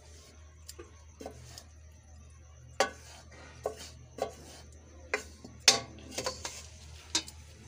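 A spoon scraping and clinking against a cooking pot as thick cooked curry is scooped out onto a plate: irregular sharp knocks and scrapes, about one or two a second, over a steady low hum.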